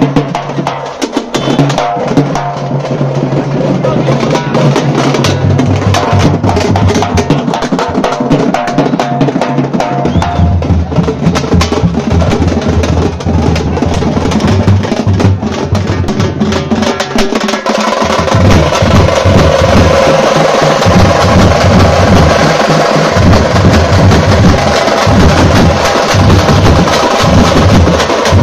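A tamte drum troupe plays together in a fast, dense rhythm: flat frame drums (tamte) and big stick-beaten bass drums, with a deep booming underneath. The drumming grows fuller and louder about eighteen seconds in.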